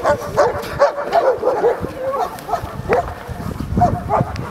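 German Shepherd dogs barking and yelping excitedly: a rapid run of short, high yips, several a second.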